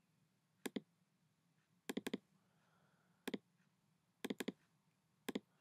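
Computer mouse clicking quietly in quick pairs and triples, five little groups spread about a second apart.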